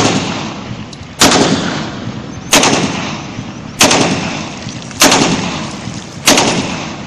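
A 30 bore TT (Tokarev-pattern) pistol, chambered for 7.62×25 mm, firing six shots at a steady pace about a second and a quarter apart. Each shot is a sharp crack followed by a long echo that dies away before the next.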